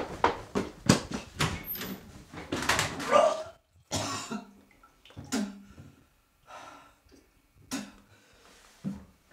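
A man retching and coughing over a toilet bowl in irregular heaves, with short gasps and silent pauses between them.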